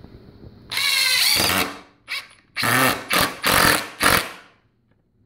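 Ridgid GEN5X 18-volt brushless impact driver running in trigger bursts as it drives into a wooden board: one run of about a second, then four or five short bursts.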